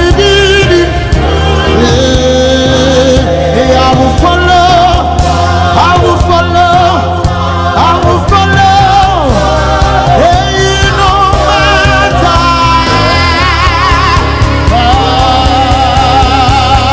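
Live gospel worship music: voices singing a wavering, vibrato-laden melody over a full band with a steady bass and beat.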